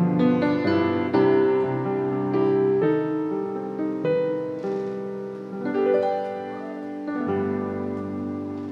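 Fritz Dobbert grand piano played solo: a slow closing passage of chords and single notes, ending on a chord struck about seven seconds in that rings on and fades away.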